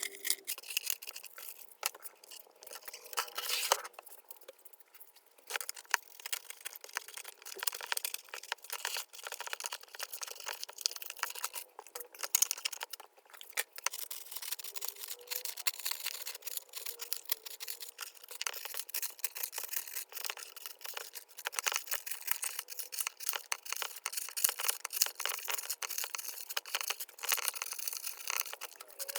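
Irregular scraping and crunching, with many small scratches and rough strokes, as rusty, crumbly insulation is dug out of a mini fridge's sheet-metal door by hand.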